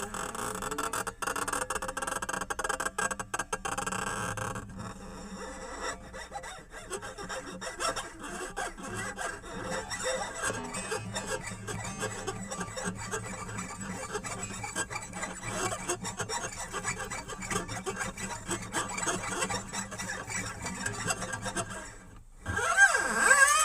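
Experimental music: a dense crackling, rasping texture of rapid clicks over wavering, gliding tones, which drops out briefly near the end and comes back louder.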